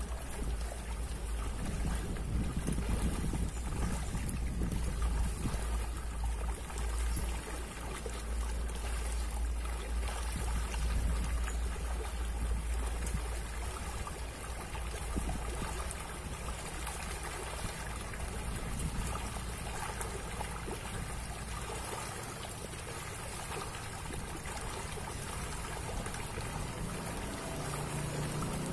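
Pond fish (pacu, tilapia and Java barb) splashing at the water's surface in a feeding frenzy on scattered pellet feed, a continuous watery splashing. A low rumble underneath drops away about 22 seconds in.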